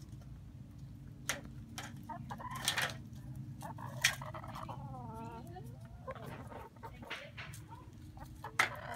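Hens clucking as they feed, with a falling call about halfway through and a few sharp taps.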